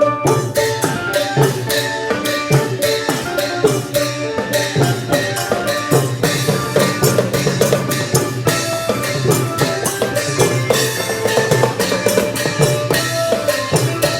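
Music with drums and other percussion keeping a fast, dense beat, with pitched notes held over it.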